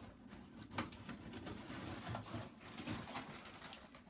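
Clear plastic bags crinkling and rustling as bagged storybooks are picked up and handled, a string of short crackles.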